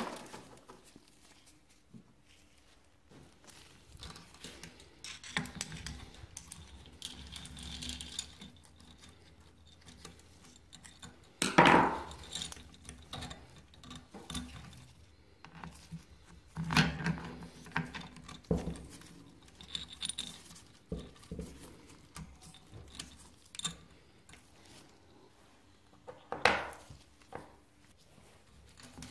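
Small metal engine parts clinking and a roller cam chain rattling as they are handled by hand, in a string of separate short clatters with quiet gaps; the loudest comes near the middle.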